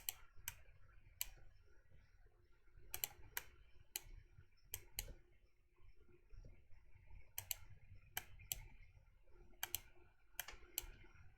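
Faint, scattered clicks of a computer mouse and keyboard keys, some single and some in quick clusters of two or three, with pauses of a second or more between them.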